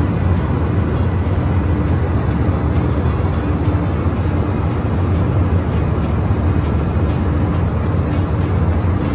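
Passenger airliner cabin noise in flight: a loud, steady, deep drone of engines and airflow that does not change.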